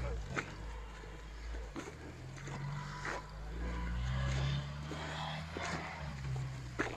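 Off-road vehicle's engine running and revving, its pitch rising and falling and loudest around the middle, with scattered light clicks.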